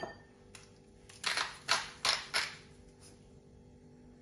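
Hand salt mill grinding salt: four short crunching grinds, about three a second, starting a little over a second in.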